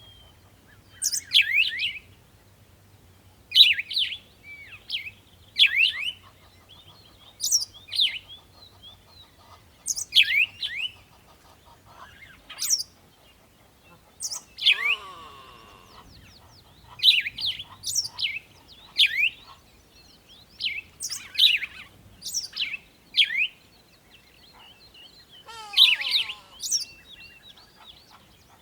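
A bird chirping repeatedly: short, sharp calls that drop in pitch, one every second or two.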